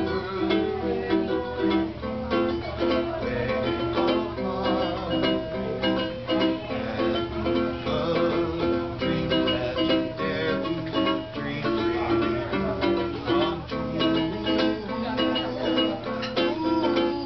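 Ukulele strummed steadily, playing a song's chords.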